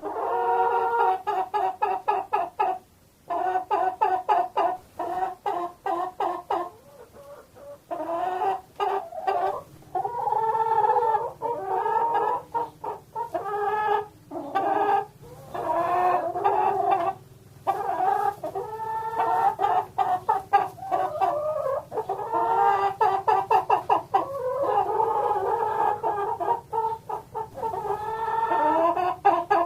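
Chickens clucking in rapid runs of short repeated calls, with brief pauses between the runs.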